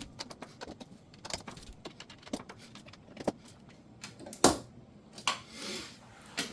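Scattered small metallic clicks and clinks of screws and a screwdriver being handled while the dishwasher's front panel is fastened, with a sharper knock about four and a half seconds in and a brief rustle a second later.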